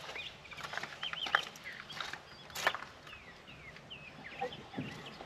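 Outdoor birds calling: a string of short chirps and whistled notes that glide up and down, with a few sharp clicks in between.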